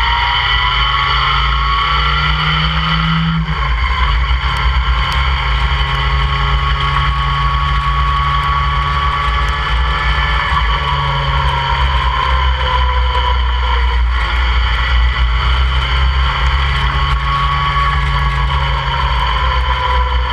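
Open-cockpit sports car's engine pulling hard at track speed, its pitch climbing and then dropping on an upshift about three and a half seconds in, then rising and falling with the throttle, with a steady low rumble of wind and road noise on the onboard microphone.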